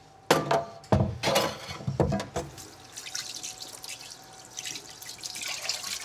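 Water running from a kitchen faucet into a sink, with several sharp clatters of things being handled in the sink in the first two and a half seconds, then a steady run of water.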